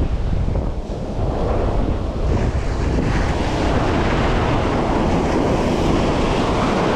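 Ocean surf washing onto the beach, with strong wind buffeting the microphone in a heavy low rumble.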